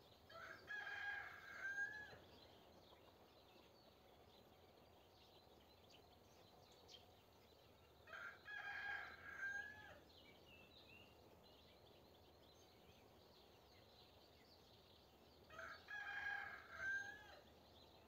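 Rooster crowing three times, about seven seconds apart, each crow lasting between one and a half and two seconds.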